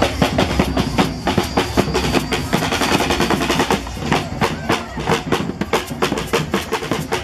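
Street parade drummers playing hand-carried drums in a fast, dense, driving rhythm, with voices mixed in underneath.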